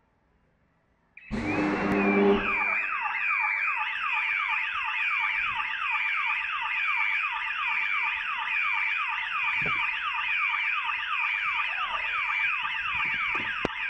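A gas pipe explosion under a manhole goes off about a second in: a sudden loud blast with a deep rumble lasting about a second. A car alarm starts wailing at once with a rapid train of falling sweeps, about three or four a second, over a warbling high tone.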